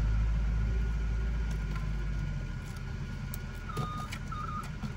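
Low rumble of a nearby motor vehicle's engine, strongest for the first two seconds and then easing off, with two short high beeps near the end like a vehicle's reversing alarm.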